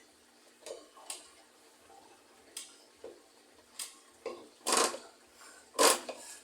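Scattered metallic clicks and clanks from a washing machine's drive mechanism being worked by hand, with two louder knocks close together in the second half.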